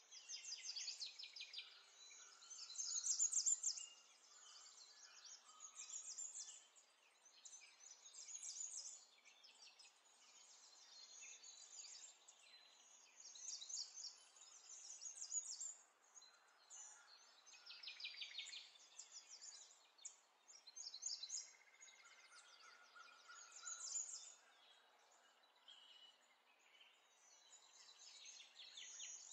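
Faint birdsong in the background: small birds chirping and trilling in short repeated phrases every few seconds.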